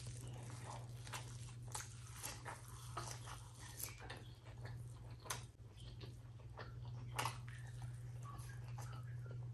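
Wet, irregular eating sounds: fingers squishing and mixing rice with mashed potato bharta, and mouthfuls being chewed with sharp wet smacks and clicks throughout. A steady low hum runs underneath.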